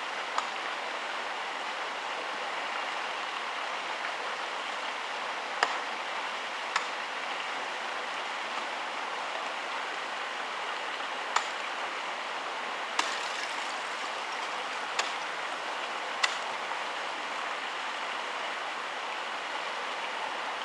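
Ice axes and crampons striking frozen waterfall ice in sharp single knocks a few seconds apart, seven in all, over a steady rushing hiss.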